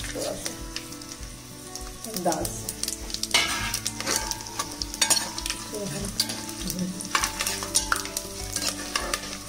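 Whole spices frying in hot mustard oil in an aluminium pot: a steady sizzle with many small pops, and a metal spoon clicking and scraping against the pot as it stirs, busier from about three seconds in.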